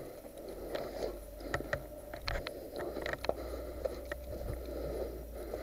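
A player's movement noise: footsteps and rustling of clothing and gear, with a run of short sharp clicks and knocks about two to three seconds in.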